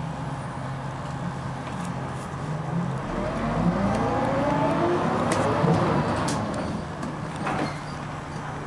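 Dennis Arrow double-decker bus's diesel engine pulling hard, its pitch rising from about three seconds in and dropping back near the end as the ZF automatic gearbox changes up. A few sharp rattles sound over it.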